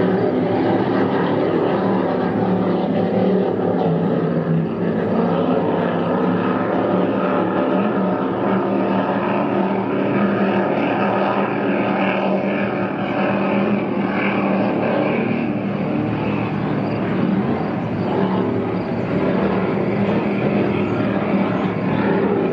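Offshore racing powerboat engines running at high speed: a loud, steady drone.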